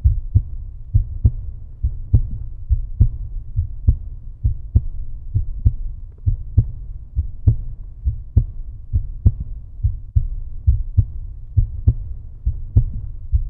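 Outro music: a deep, bass-heavy beat pulsing about twice a second, like a heartbeat, that cuts off abruptly at the end.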